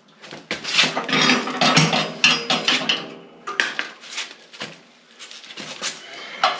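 Metal snowplow mounting hardware clinking and clanking as it is handled. A dense run of rattling clanks lasts about two and a half seconds, followed by a few separate metallic knocks.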